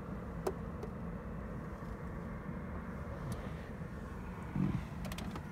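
Steady low rumble of an idling truck engine, with a few faint clicks and a short low thump near the end.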